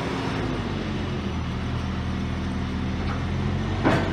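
An engine running steadily with a low, even hum. A single sharp knock comes near the end and stands out above it.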